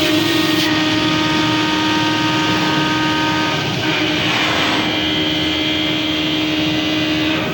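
Schnitzer 4-axis CNC wood lathe running, its motors giving a steady whine made of several held tones, with a rougher stretch of cutting noise about four seconds in.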